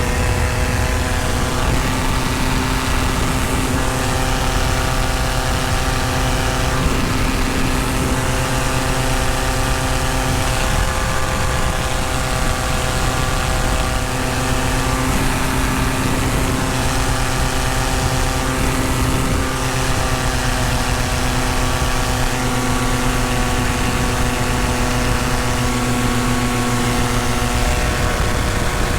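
Tandem paramotor's engine and propeller running steadily in flight: a constant drone that shifts slightly in pitch now and then.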